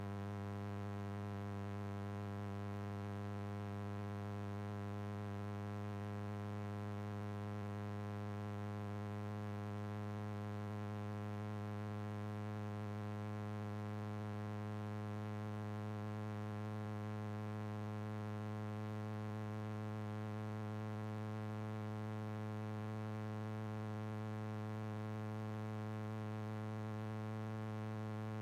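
Steady electrical hum, a low tone with a ladder of evenly spaced overtones that holds exactly the same pitch and level throughout.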